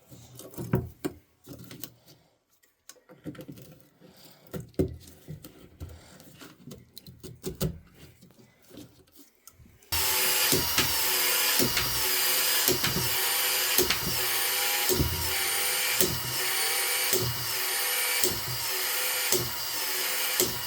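Scattered clicks and knocks of handling tools and fittings; about halfway through, a loud steady motor sound starts abruptly, with regular knocks under it about every 0.7 seconds.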